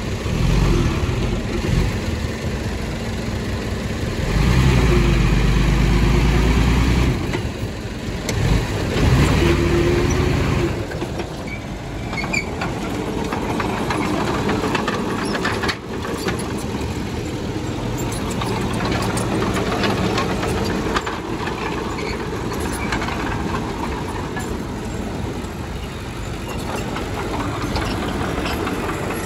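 Diesel engines of earthmoving machinery running steadily, with two louder stretches about four and eight seconds in.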